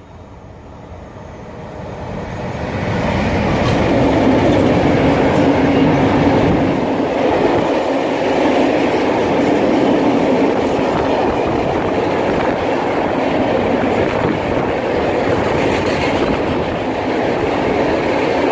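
A freight train of cement hopper wagons behind a Newag Dragon 2 electric locomotive runs through the station: the noise swells over the first three seconds as the locomotive comes up and passes, then holds steady as the loaded wagons roll by on their wheels.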